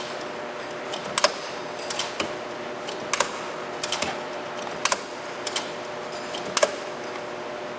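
The hand-operated six-position turret of a Hardinge DSM-59 turret lathe being worked: sharp metallic clicks and clacks about once a second as the turret slide is moved and the turret indexes. Under them is a steady machine hum.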